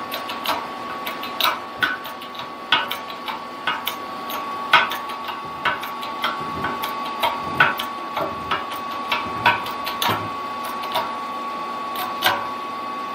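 Bearing outer race being pressed into a mini lathe's cast-iron headstock with a shop press: a run of irregular sharp clicks and ticks as the steel race is pushed down its bore. A steady high hum runs underneath.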